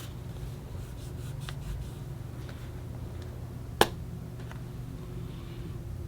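Small items being handled: a few light taps and ticks, and one sharp click a little under four seconds in, over a steady low hum.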